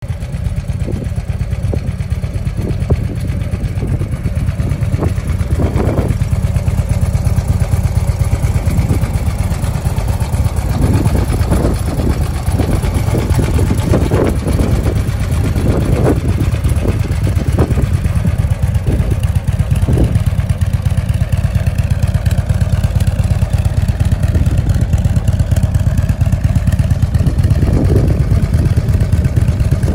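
Harley-Davidson CVO Ultra Classic's 110 cubic inch Screamin' Eagle V-twin idling steadily.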